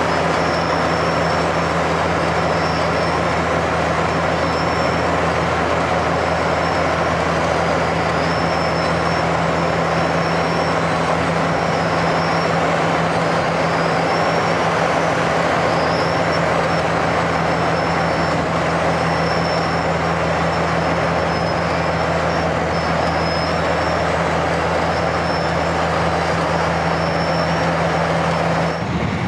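Wirtgen W250 cold milling machine at work: its large diesel engine runs with a steady low hum under the broad, continuous grinding of the cutting drum milling off old asphalt, with short high-pitched squeals coming and going.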